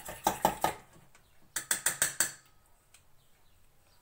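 A metal utensil beating rapidly against a small stainless steel pan: two quick runs of sharp clicks, about six a second, the second stopping a little past two seconds in.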